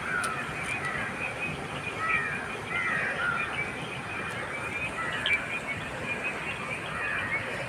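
Birds chirping and calling repeatedly, short curved chirps over a steady background hiss.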